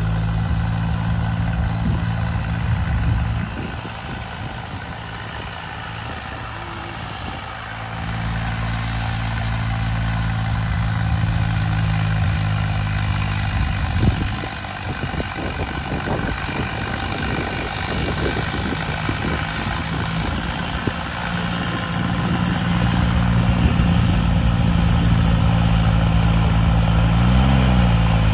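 John Deere 5075E tractor's diesel engine running steadily under load while pulling a disc harrow. It is quieter for a few seconds early on and louder toward the end, with a brief change in engine pitch near the end.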